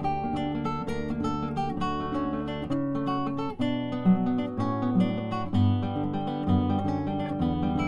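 Background music of strummed acoustic guitar with a steady rhythm.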